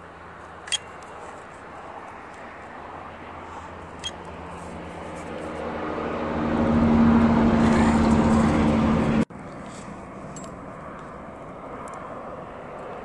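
Two sharp clicks from a hand caulking gun squeezing concrete adhesive anchor into a drilled hole. From about five seconds in, a drone with a steady low hum swells up to the loudest sound here and then cuts off abruptly.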